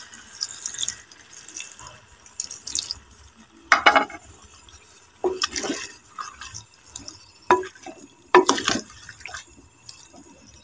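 Wooden spoon stirring wet potato and capsicum pieces in a clay pot, with irregular scrapes and knocks of the spoon against the pot and wet squelching of the vegetables; the loudest strokes come about four seconds in and again near eight and a half seconds.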